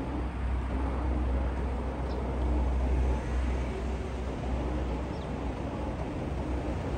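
A 6000 lb ATV electric winch running steadily under heavy load, hauling a small car up on its cable, with a strong low hum.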